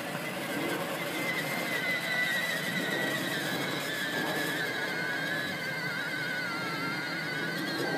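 Electric motor and gearbox of a Fisher-Price ride-on toy car whining as it drives across grass, a wavering whine that slides a little lower in pitch from about halfway through.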